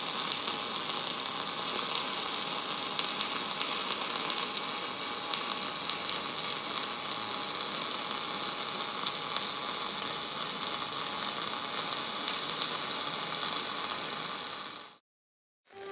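MIG welding arc crackling and sizzling steadily through a continuous bead, then cutting off suddenly near the end.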